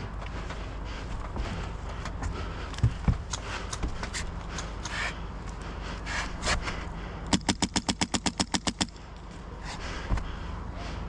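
HPA airsoft rifle, the Phylax One M4, firing a quick string of about a dozen sharp shots in roughly a second and a half, about eight a second. Scattered knocks and scuffs of movement come before it.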